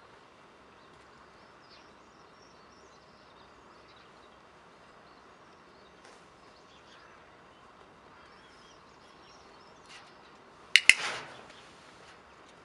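A training clicker gives one sharp double click about eleven seconds in, the marker of clicker training that tells the rabbit it did right. Behind it is faint outdoor background with a few faint bird chirps.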